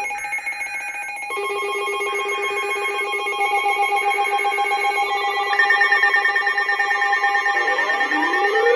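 Three short warbling data bursts of a NOAA Weather Radio SAME alert header, about a second each with a second between them, over steady electronic tones. Near the end, rising synthesizer sweeps come in.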